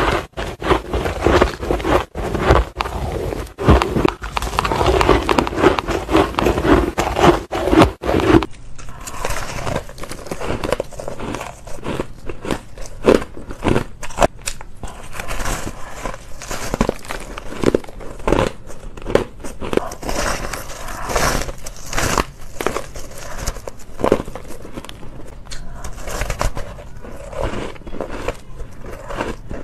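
Close-up biting and chewing of fluffy, dry shaved ice in snow-like lumps: dense crunching and crackling. About eight seconds in the sound changes abruptly to a different recording, with separate crunchy bites a fraction of a second apart.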